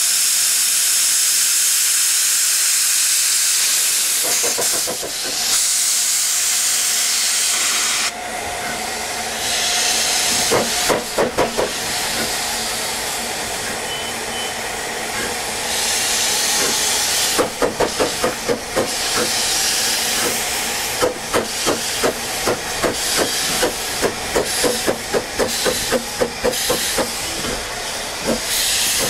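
Narrow-gauge steam locomotive: a loud hiss of escaping steam for about the first eight seconds, then a steady run of rhythmic exhaust beats, about two a second.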